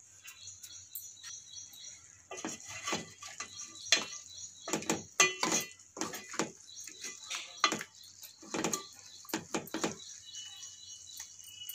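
Metal spoon knocking and scraping against an aluminium pan while pieces of fried fish are turned, a string of irregular sharp clicks over a faint steady hiss.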